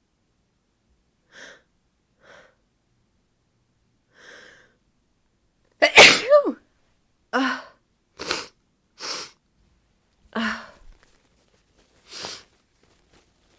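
A woman sneezing: a few faint breaths, then a loud sneeze about six seconds in that ends in a high-pitched squeak sliding down in pitch, followed by five shorter, quieter bursts.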